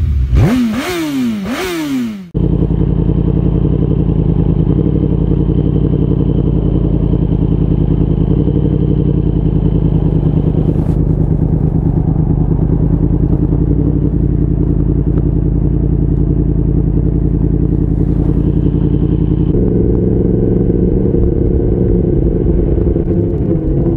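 Motorcycle engine revved in quick rising and falling sweeps for about two seconds, then an abrupt change to a steady, even engine drone, as when riding at constant speed. The drone's pattern shifts slightly near the end.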